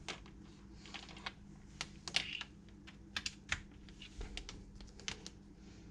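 Scattered light clicks and taps of a micro USB cable being handled and plugged into a laptop's USB port, the connector and cable knocking against the table and laptop. The clicks come irregularly, a dozen or so, the strongest about two seconds in.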